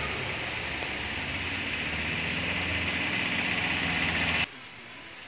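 A steady engine-like hum under a loud hiss, cutting off suddenly about four and a half seconds in and leaving faint background noise.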